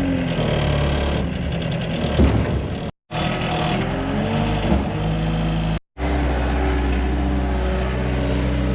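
Tractor engine running steadily, with a few brief changes in engine speed in the first half. The sound is broken twice by short silent cuts.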